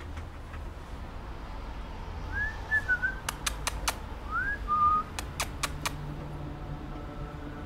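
A person whistling two short phrases, each a rising note that drops to a lower one, about two seconds apart. Each phrase is followed by a quick run of sharp clicks.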